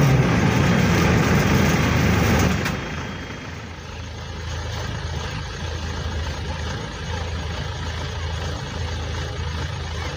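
Maxxi Bimo 102 combine harvester's engine running loudly, then, after an abrupt cut about two and a half seconds in, idling more quietly and steadily.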